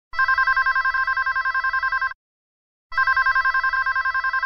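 Telephone ringing twice: a trilling electronic ring, each ring about two seconds long with a short pause between them.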